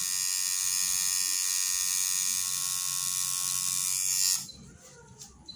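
Coil tattoo machine buzzing steadily with a high, dense buzz as it inks skin, then cutting off suddenly about four seconds in.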